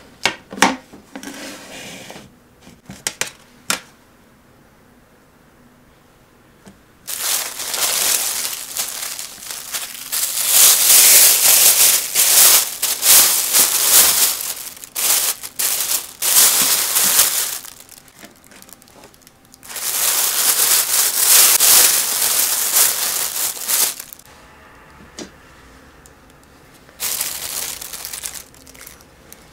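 Thin plastic food bag crinkling and rustling loudly in long stretches as it is handled and opened. A few light knocks near the start come from a stainless steel tray being set on a wooden table.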